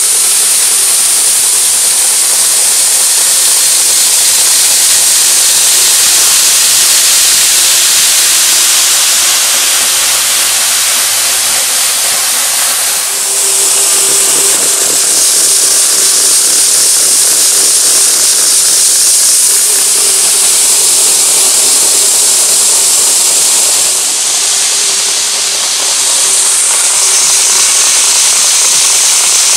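N gauge model trains running on the layout track: a steady loud hiss of wheels rolling on the rails with a faint, even motor whine underneath. The sound shifts about 13 seconds in and again around 25 seconds, as the shot changes.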